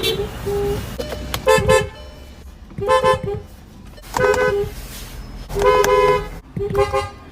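Fiat Marea Weekend's car horn honked in a string of short blasts about every second and a half, with one longer blast about six seconds in. Two notes sound together in each honk.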